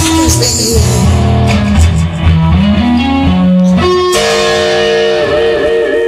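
Rock song instrumental passage led by electric guitar over bass, with held notes wavering in vibrato near the end.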